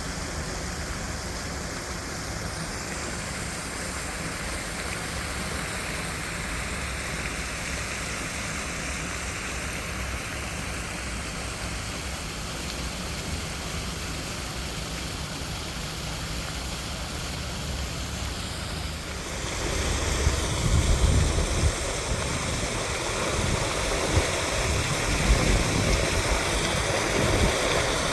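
Stormwater drain overflow pouring into a creek as a small waterfall: continuous rushing, splashing water that becomes louder and fuller about two-thirds of the way through.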